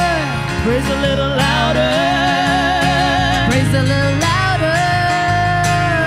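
Live worship song: women singing in harmony with vibrato, accompanied by acoustic guitar.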